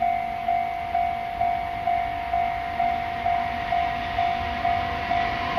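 Japanese level-crossing warning bell ringing in a steady beat, about two strikes a second, each strike sharp and fading, with a low rumble underneath.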